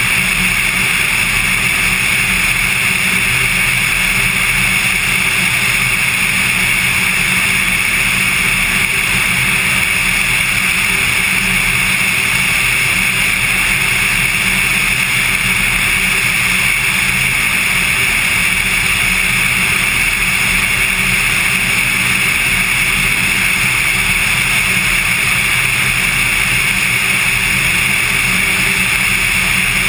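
Cessna 182's piston engine and propeller droning steadily in flight, heard from inside or on the aircraft as a loud, unchanging noise.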